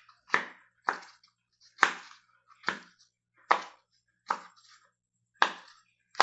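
Bubbles of a pop-it fidget toy being pressed one at a time: about eight sharp pops, unevenly spaced and each under a second apart.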